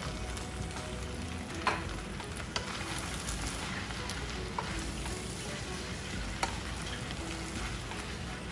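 Udon noodles and vegetables sizzling in a hot frying pan as a wooden spatula stirs and tosses them, with a few short sharp clicks of the spatula against the pan.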